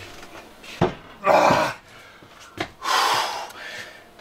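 A heavy wood stove knocks sharply twice as it is shoved into place, and each knock is followed by a loud, heavy exhale of a man straining under the load.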